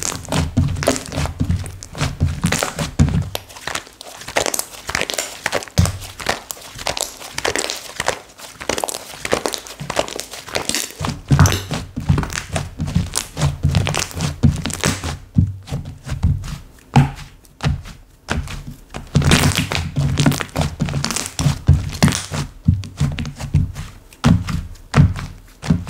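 Hands playing with slime: pressing, folding and squishing it, giving dense runs of crackly clicks and pops with soft thuds as it is pressed down. It goes quieter for a couple of seconds past the middle.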